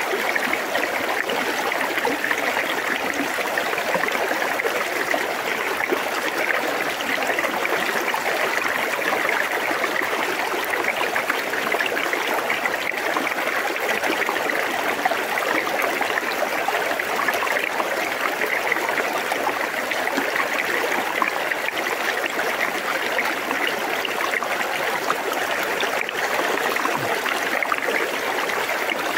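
River water flowing and trickling around stones at the water's edge, a steady, even babble.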